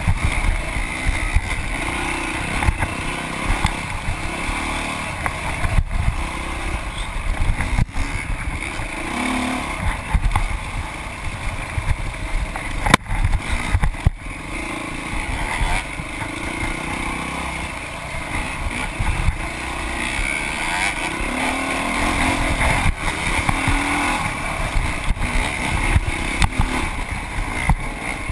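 Dirt bike engine heard from a handlebar-mounted camera, rising and falling with the throttle while riding a rough trail, with sharp knocks and rattles from the bike hitting bumps.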